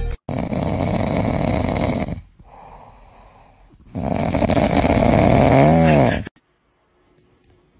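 Pig snoring loudly in its sleep: two long, rough snores of about two seconds each, with a softer breath between. The second snore ends in a brief wavering tone.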